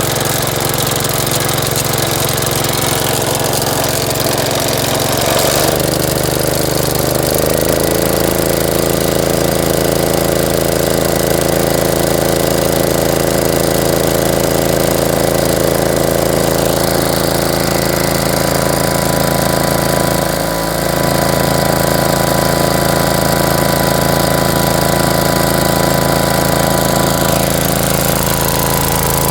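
Gravely garden tractor engine running steadily after a hard start; about six seconds in it speeds up and settles at a higher, even pitch, and around twenty seconds in it stumbles for a moment before running on.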